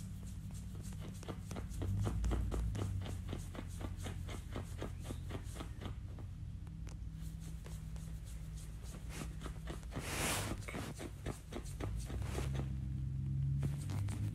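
Quick rhythmic scratching and rubbing as a dog's belly fur is scratched and the dog kicks and paws on a leather couch, several strokes a second. A brief louder rustle comes about ten seconds in.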